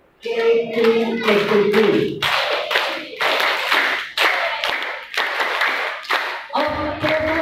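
A group of people clapping together in a steady rhythm, about three claps a second, led by a man's voice over a microphone that is heard before the clapping starts and again near the end.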